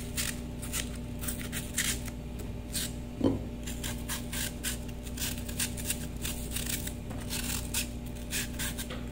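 Kitchen knife cutting an apple into cubes: a run of short, crisp cuts and scrapes at an uneven pace, with one dull knock about three seconds in.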